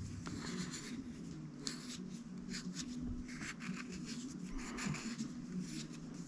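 Steel knife blade stroked repeatedly across a sharpening stone, a short scraping rasp with each pass, about one or two strokes a second. The edge is being ground on a finer stone to work out a chip, with a burr already raised.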